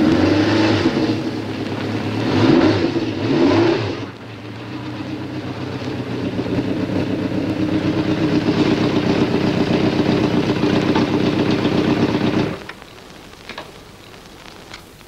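Honda motorcycle engine revving a few times, then running steadily and growing gradually louder before cutting off abruptly; a couple of faint clicks follow.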